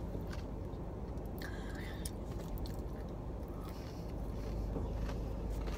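A person chewing a mouthful of lemon pepper dry-rub fried chicken, with soft wet mouth clicks, over a low steady hum that grows louder about four seconds in.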